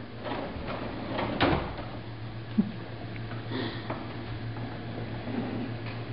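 Plastic ride-on toy rolling and bumping across a hardwood floor as a toddler pushes it, with scattered knocks and clicks, one stronger knock about a second and a half in, over a steady low hum.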